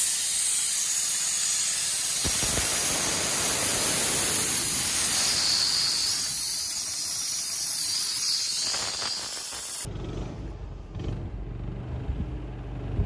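Compressed air hissing steadily out of a valve on a gas-engine-driven air compressor's tank, cutting off abruptly about ten seconds in. A low rumble follows.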